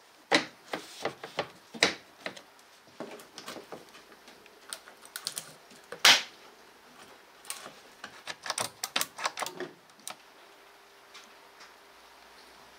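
Irregular clicks, taps and knocks of parts and hand tools being handled while working on a car engine. The loudest knock comes about six seconds in, and a quick run of clicks follows around nine seconds in.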